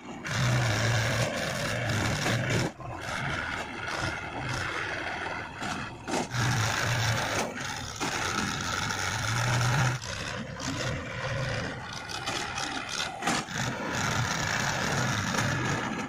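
Diesel engines of a JCB 3DX backhoe loader and a Mahindra 475 DI tractor running together as the loader works, with a steady whine and knocks and rattles now and then.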